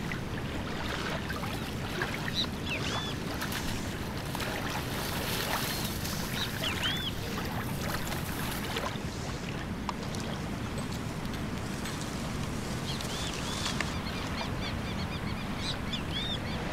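Lakeshore ambience: a steady rushing background with short, arching bird chirps scattered through it, several in quick groups.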